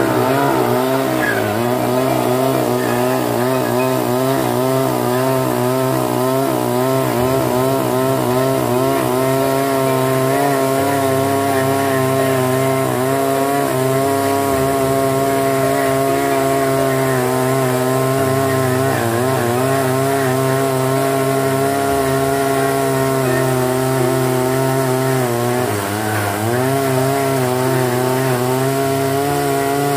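A power tool running continuously, its pitch wavering in the first part and dipping briefly twice, about two-thirds of the way through and again near the end.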